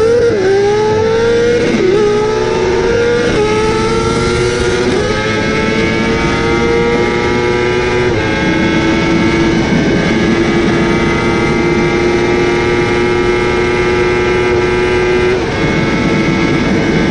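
Yamaha YZF-R1M's crossplane inline-four superbike engine at full throttle, pitch climbing and dropping back at each of several quick upshifts over the first eight seconds. It then holds a steady high pitch flat out in top gear near 300 km/h. Heavy wind rush comes from riding at speed.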